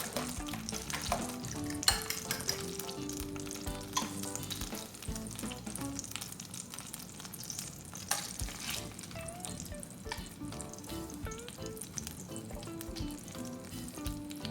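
Food frying in a pan, a steady crackling sizzle, with light background music.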